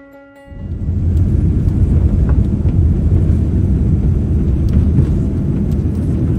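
Boeing 787-8 airliner cabin during the takeoff roll: a loud, steady low rumble of engine thrust and runway noise. It starts abruptly about half a second in.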